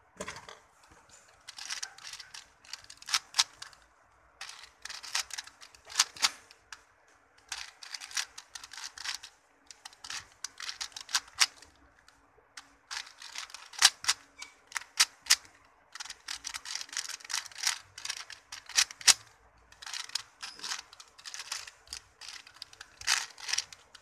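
Plastic 4x4 Rubik's cube clicking and clacking as its layers are turned in quick runs of moves, with short pauses between runs, while the parity algorithm is worked through.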